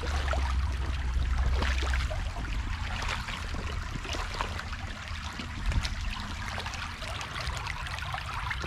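Creek water running over rocks, trickling and splashing, with a low rumble during the first two seconds.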